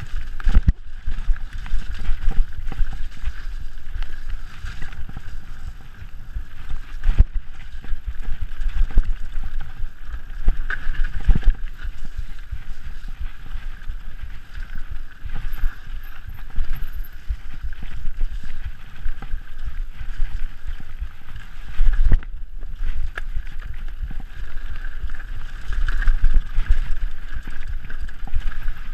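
Mountain bike descending a rough dirt trail, heard from an onboard camera: constant wind buffeting on the microphone with frequent knocks and rattles as the bike hits bumps, the loudest jolts about eleven seconds in and again near twenty-two seconds.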